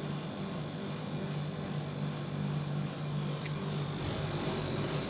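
Refrigeration compressors of an ice block machine plant running, a steady low hum with an even noise of machinery over it.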